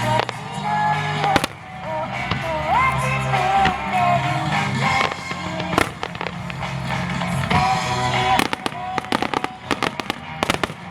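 Starmine fireworks bursting over a music soundtrack with a melody and steady bass. Single sharp bangs come now and then, then a rapid run of bangs from about eight seconds in.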